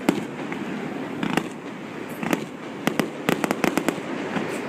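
Fireworks display going off: scattered sharp bangs and cracks, with a quick run of crackling reports about three and a half seconds in.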